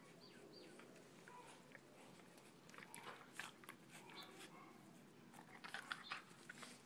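Dogs play-fighting, faint: quick snaps and mouthing of jaws with scuffling, coming in two short flurries of sharp clicks about three seconds in and again near six seconds.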